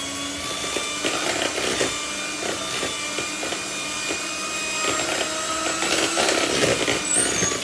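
Electric hand mixer running steadily, beating an egg into cake batter, with an irregular clatter of the beaters. Its motor begins to spin down right at the end.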